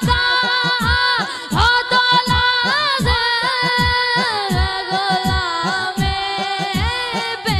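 A boy singing a naat solo into a microphone, his high voice holding long, wavering, ornamented notes. Under it runs a steady beat of low drum thumps, each falling in pitch, about two to three a second.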